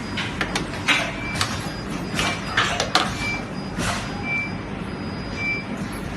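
18650 battery laser welding machine running: a steady low hum, short high beeps about once a second, and several sharp snaps and short hissing bursts in the first four seconds.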